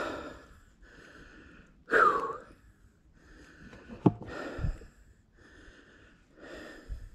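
A man breathing hard with excitement after a kill: quick, regular breaths in and out, with one louder gasp about two seconds in. A sharp click sounds just after four seconds.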